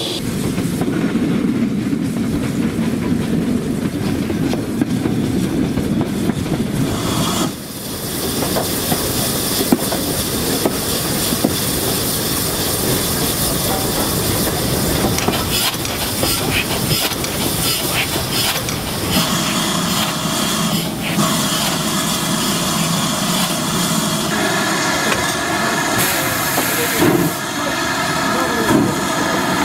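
A steam-hauled train running: a steady low rumble, then wheels clicking over rail joints, with steam hissing from GWR 2800 class locomotive 2807 near the end. The sound changes abruptly about 7 s and 19 s in.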